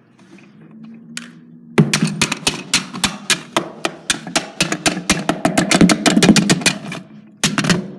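Rapid, repeated hard plastic blows smashing a mini toy hairdryer inside a box, several strikes a second, starting about two seconds in after a faint steady hum, with a brief pause near the end before the blows resume.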